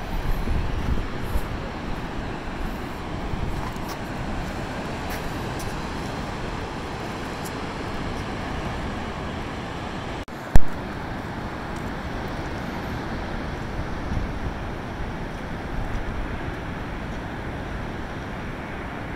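Wind buffeting the microphone over a steady rush of surf, gustier in the first couple of seconds. A single sharp click a little past halfway.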